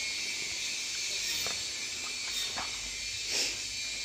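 Steady high hiss of background noise, with a few faint soft knocks and a brief rustle about three and a half seconds in.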